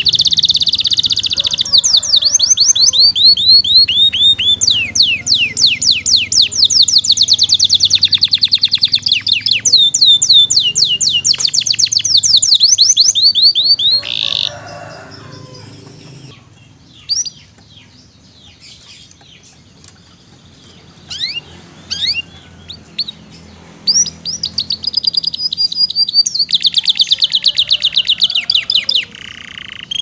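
Domestic canary singing in long, rapid trills of repeated falling notes. About 14 seconds in it breaks off into scattered short chirps, then trills again from about 24 seconds in until near the end.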